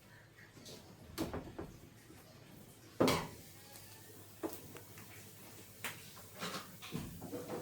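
Scattered knocks and clatter of tools and parts being handled while a washing machine is taken apart to change its suspension springs, the loudest knock about three seconds in and several more near the end.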